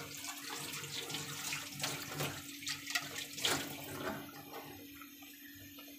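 Curry of eggplant and tomato simmering in an open karahi on a gas burner: a steady bubbling hiss with many small pops, growing quieter about four seconds in, over a low steady hum.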